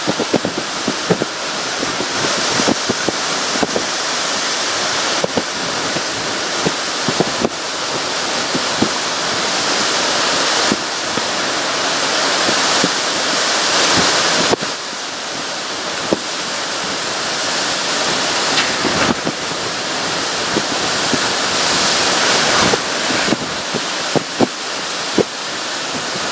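Hurricane eyewall wind and driving rain making a loud, steady rush that swells with the gusts and eases suddenly about halfway through. Many sharp ticks and knocks, from rain and flying debris striking the building and surroundings, run throughout.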